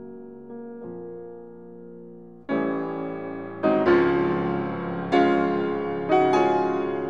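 Background piano music: soft held notes, then louder chords come in about two and a half seconds in and new notes are struck roughly once a second.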